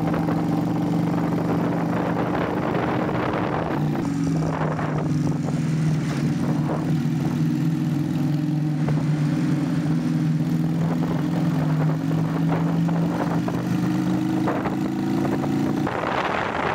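SM V16 250cc two-cylinder V-twin motorcycle engine running steadily under way, its exhaust note shifting slightly about four seconds in. Near the end it cuts to wind rushing over the microphone.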